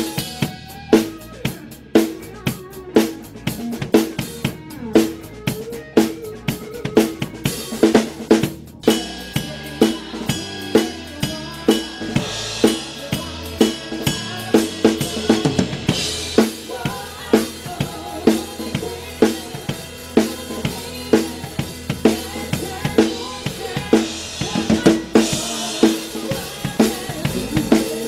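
Drum kit played in a steady groove. The backbeat falls on a free-floating PVC-shell snare drum with a die-cast top hoop, damped with a donut muffling ring. The cymbals grow louder about ten seconds in.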